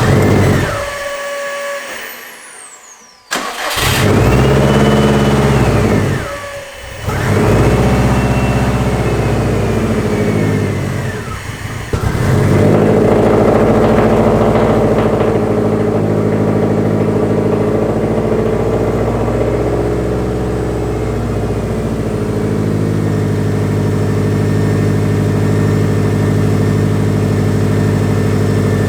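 2015 Subaru STI's turbocharged flat-four engine cold-starting with difficulty: it catches, flares up and sags twice as if about to stall, then about twelve seconds in settles into a steady fast idle.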